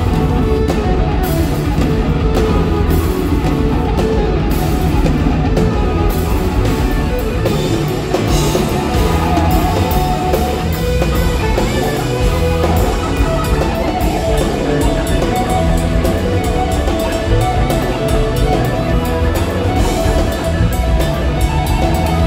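Live rock band playing: electric guitars over bass guitar and a drum kit with steady cymbal and drum hits, loud and dense.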